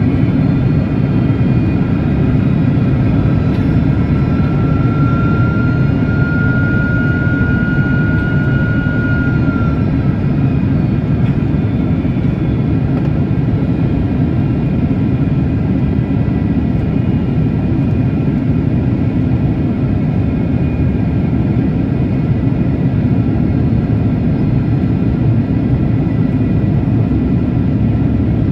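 Jet airliner on approach, heard as a steady, loud roar of engines and rushing air. A faint whine climbs slightly in pitch for several seconds about a third of the way in.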